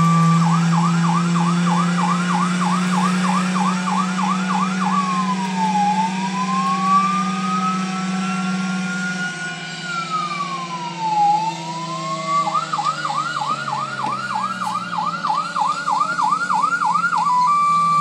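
Electronic fire-truck siren played through a small portable speaker: a fast yelp cycling about two and a half times a second, which slows in the middle into a wail that falls, rises long and falls again, then returns to the fast yelp near the end. A steady low drone runs underneath for the first half.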